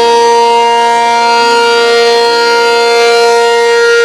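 ACA Allertor warning siren holding one steady, loud tone with strong overtones.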